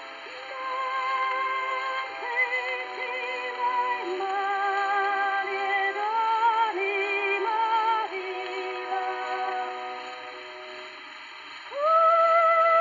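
Music: a melody of held notes with vibrato in a synthesized, voice-like sound. A louder held note comes in near the end.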